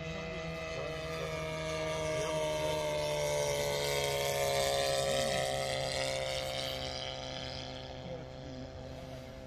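RC model airplane flying overhead, its motor and propeller making a steady buzzing drone. The drone grows louder as the plane passes close, then drops slightly in pitch and fades as it flies away.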